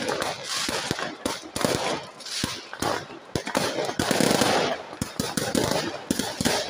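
Fireworks going off in rapid strings of sharp bangs and crackling, with a dense crackling volley about four seconds in.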